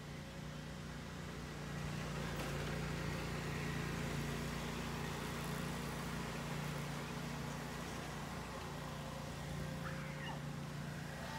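A steady low mechanical hum, like a running vehicle engine, under outdoor background noise. About ten seconds in, a woman gives a faint short scream.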